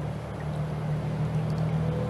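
A low, steady engine drone growing louder, over the trickle of a forest stream.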